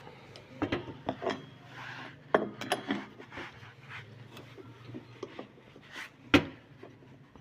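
Irregular knocks, clicks and scraping of hard objects being handled, with one sharp knock a little over six seconds in.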